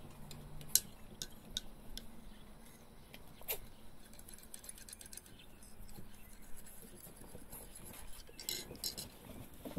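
Faint, scattered light clicks and taps from Shih Tzu puppies' claws scrabbling on a wooden deck and over a plastic shopping bag. There is a sharper click about a second in and another about three and a half seconds in.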